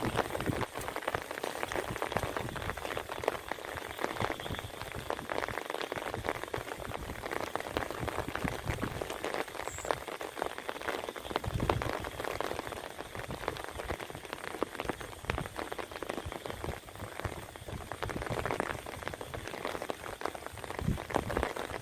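Steady rain, a dense patter of drops, with a few soft low thumps of water here and there.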